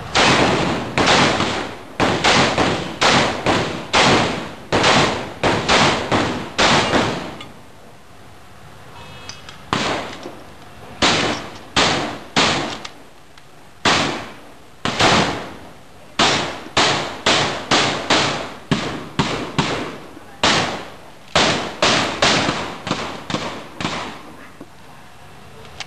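Shotgun firing rapidly in strings of shots, each a sharp report with a short decaying tail, with two brief pauses of a second or two between strings.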